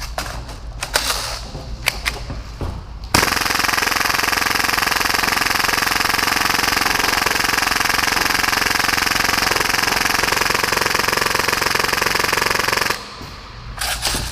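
Full-auto Tokyo Marui Hi-Capa gas blowback airsoft pistol firing one long continuous burst, about 30 shots a second, for roughly ten seconds, starting about three seconds in after a few handling clicks, and stopping abruptly as the magazine runs dry.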